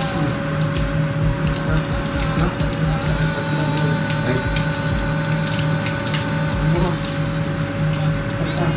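Swimming-pool pump running with a steady hum and water rushing through the plumbing, with small clicks and taps from hand work on the pipes and valves.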